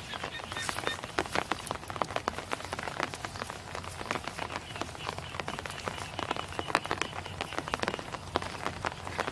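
Dense, irregular pattering and splashing of water, many small drops and splashes with no rhythm, with a faint high steady call in the middle.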